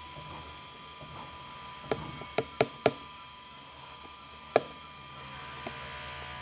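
Five sharp knocks of hard objects being handled on a hard surface: four quick ones about two seconds in, then a single louder one a little past halfway, over a steady faint hum.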